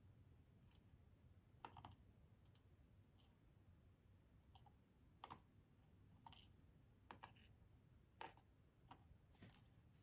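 About a dozen faint, short clicks and taps at irregular intervals: small lock pins and springs being set one by one into the slots of a parts tray.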